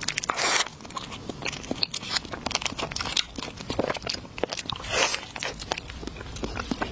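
Close-up crunchy eating: a steady patter of crisp crunches and chewing clicks, with louder, longer crunches just after the start and again about five seconds in.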